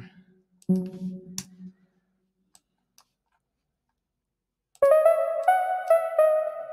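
Software synth pluck sound in Ableton Live: a single low note is auditioned about a second in, then after a pause the programmed MIDI melody plays back from near five seconds as a line of short, plucked synth notes.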